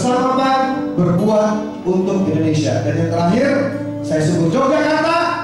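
A man singing a slow, wavering melody, accompanied by two acoustic guitars.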